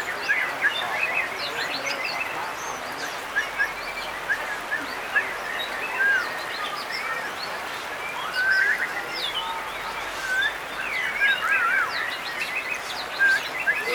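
Several white-rumped shamas singing at once, a dense tangle of short whistles, chirps and quick rising and falling notes, over a steady hiss.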